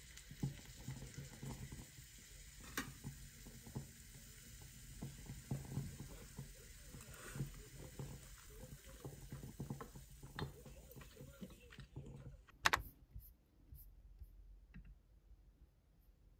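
Thin-sliced beef brisket sizzling on a small tabletop grill, with frequent light clicks of tongs and chopsticks. About three-quarters of the way through the sizzle stops, there is one sharp loud click, then only a few faint clicks.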